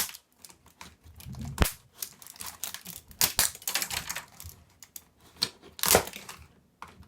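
Irregular plastic clicks, cracks and crackling from parts of an old 1990s computer keyboard being pried and broken apart, with two sharper snaps about one and a half seconds and six seconds in.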